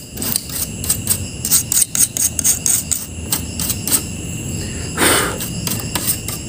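A stiff brush scrubbing dirt off an LED TV panel's circuit board, in short scratchy strokes a few times a second, with one longer, louder stroke about five seconds in.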